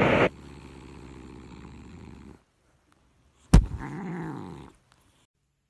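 Grey long-haired cat purring steadily for about two seconds. After a short pause there is a sharp knock, then one short, low meow whose pitch rises and falls.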